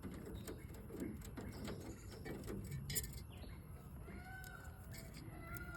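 Pet lovebirds calling: short notes that rise and fall, twice in the second half, over scattered small clicks and taps, with one sharper click about halfway through.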